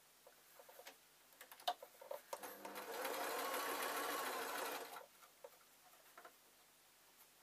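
Sewing machine stitching a short run of about two and a half seconds, starting about two seconds in. Light clicks before and after it.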